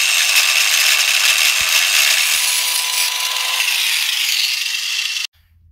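Angle grinder with a cutting wheel cutting through a welded steel bracket on a truck's frame, a steady high whine with grinding noise. The pitch sags slightly under load in the second half, and it cuts off abruptly near the end.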